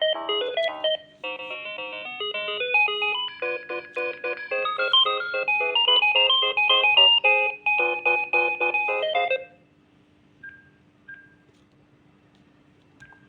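Philips CD240 cordless phone handset playing electronic ringtone melodies through its small speaker. The tune breaks off about a second in and a different pattern starts, then the ringing stops abruptly about nine seconds in. A few short single-pitch beeps follow.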